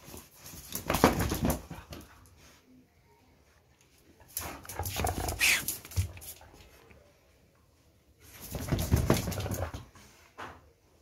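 Kombai dog playing rough with a cloth floor mat: three bouts of scuffling and dog noises, each about a second and a half long, with a short rising high whine in the middle one.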